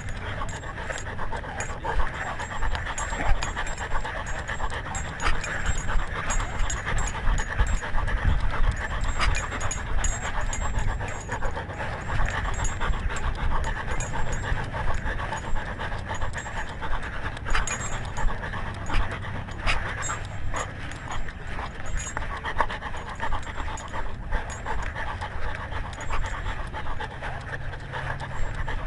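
Dog panting steadily, heard very close from a camera on its own collar, with scattered clicks.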